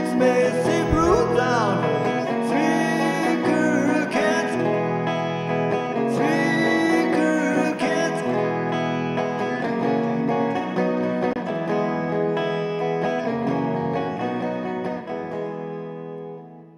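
Gretsch electric guitar playing a rock-and-roll lead with bent notes over a band backing. The music fades out near the end.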